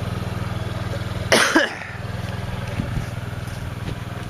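A man coughs once, a short loud burst about a second and a half in, over a steady low hum.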